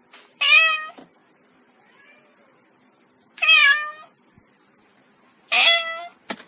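Kitten meowing: three short, high-pitched meows about two and a half seconds apart, with a sharp click just after the last one.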